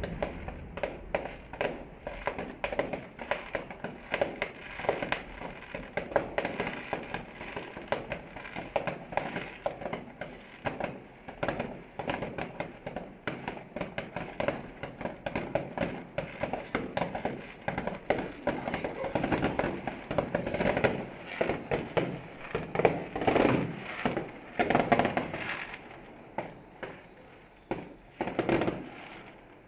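Fireworks going off in a rapid, dense string of crackling pops and bangs that fades and thins out near the end.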